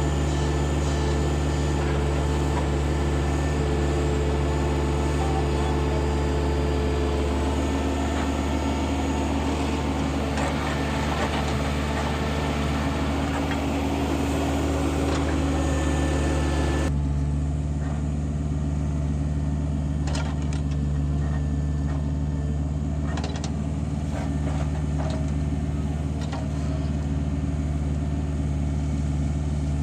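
Heavy diesel engines of a backhoe loader and farm tractor at work, running with a steady low drone. There is an abrupt change in the sound about halfway through, after which a few short knocks and clunks are heard over the engine.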